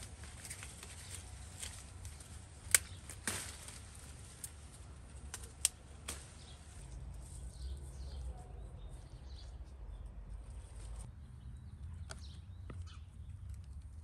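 Outdoor ambience with a steady low rumble, broken by a few sharp knocks, the loudest about three and six seconds in.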